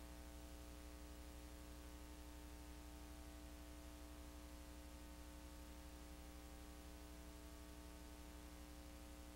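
Near silence: a steady low hum with faint hiss, unchanging throughout.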